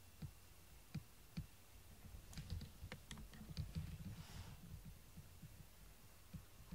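Faint, scattered light clicks and taps with soft low bumps, thickest in the middle, and a brief soft rustle about four seconds in.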